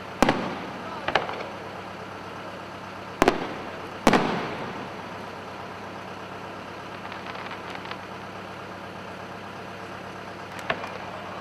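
Aerial fireworks shells bursting: four booms in the first four seconds or so, the last the loudest with a long fading echo, then faint crackling near the end. A steady low hum runs underneath.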